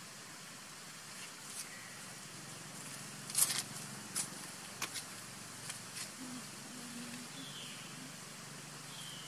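Outdoor ambience: a steady hiss broken by a handful of sharp crackles, the loudest about three and a half seconds in, and a faint short high call near the end.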